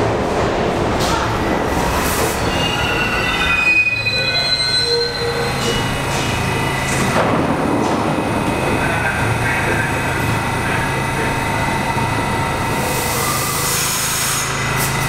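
R68 subway train on the New York City Subway pulling in and stopping, its wheels and brakes squealing at several high pitches for a few seconds. It then stands at the platform with a steady low hum from its equipment, and a brief hiss comes near the end.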